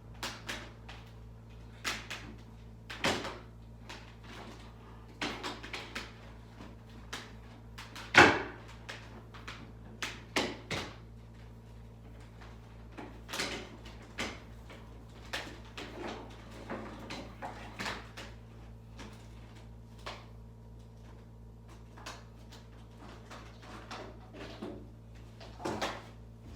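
Irregular knocks, clacks and clicks of hard objects being handled, the loudest a sharp knock about eight seconds in, over a steady low hum.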